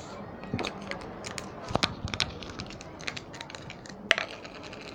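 Slime being handled, giving off irregular sharp clicks and crackling pops, the loudest a little before two seconds in and just after four.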